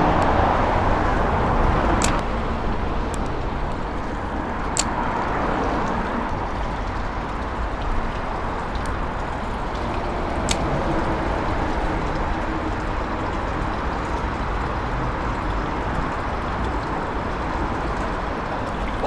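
Steady road-traffic noise from the bridge overhead, an even rumble with no gusting, with a few sharp clicks about 2, 5 and 10 seconds in.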